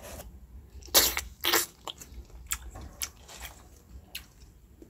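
Teeth biting through a lychee's rough rind to open it: two sharp cracks a second and a second and a half in, then smaller clicks and chewing sounds as the fruit is eaten, close to the mouth.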